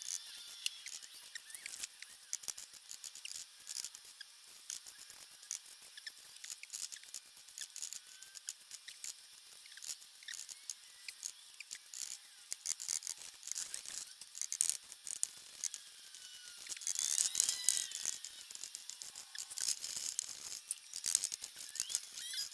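Sped-up brush work on a painting: a rapid, high-pitched run of scratching and tapping with short squeaks, busiest about three quarters of the way through.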